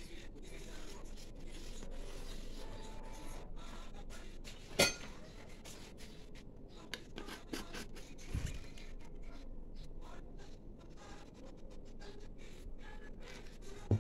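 Quiet rubbing and handling of a plastic jar as its yellow plastic screw lid is put on and turned, with a sharp click about five seconds in, a low thump after eight seconds, and a knock near the end.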